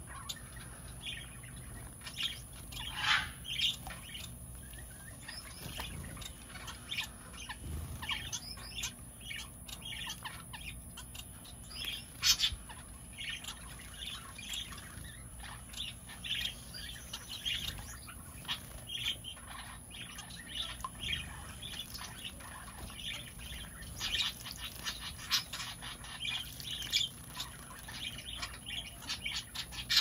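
A mixed aviary flock of small finches (society finches, Gouldian finches and owl finches among them) with small parakeets, chirping and calling without pause in many short, overlapping chirps. A louder call stands out about three seconds in and again about twelve seconds in.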